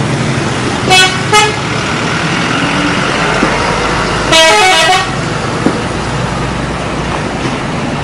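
Tour bus's multi-tone 'telolet' horn: two short toots about a second in, then a longer blast about four seconds in that steps quickly through several notes. Steady traffic and engine noise runs underneath.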